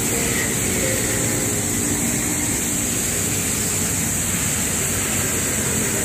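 Steady outdoor background noise from road traffic: a constant low rumble with a steady high hiss over it.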